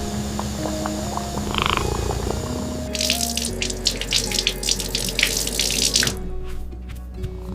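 Water running and splashing, as from a tap into a sink, for about three seconds in the middle, over soft background music.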